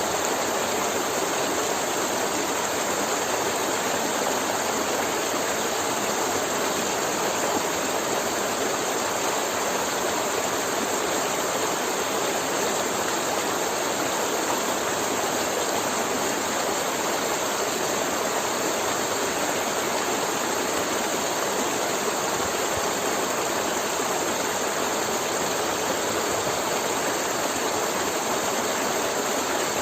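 River water flowing and gurgling over rocks, a steady, even rush with no breaks.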